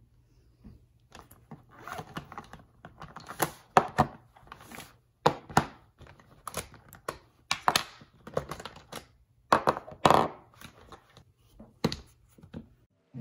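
Makeup items being handled on a desk: a canvas cosmetics pouch rustling as hands rummage in it, and plastic compacts and a tube clicking and knocking as they are picked up and set down, in a quick irregular series. A faint steady low hum runs underneath.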